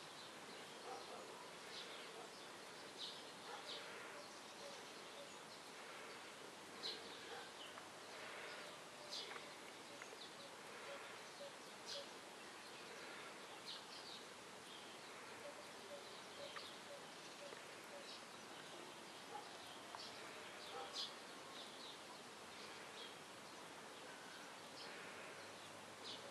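Faint outdoor ambience: a steady hiss with many short, high chirps scattered irregularly throughout.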